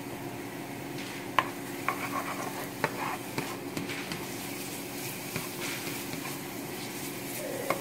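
Minced garlic sizzling in oil in a frying pan while a spatula stirs it, knocking against the pan a few times, over a steady low hum.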